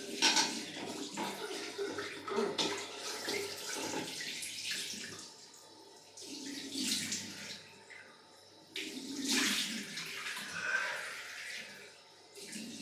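Cold-water face rinse after a shave: water splashed onto the face at a sink, in repeated bursts with short pauses between them.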